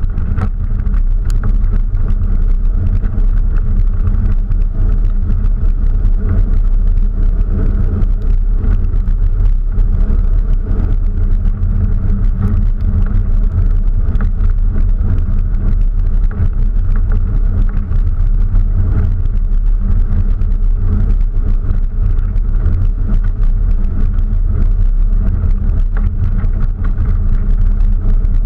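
Open-top off-road vehicle driving steadily along a rough dirt trail: a continuous low engine and tyre rumble with small rattles and clicks, heard from a camera mounted on the outside of the vehicle.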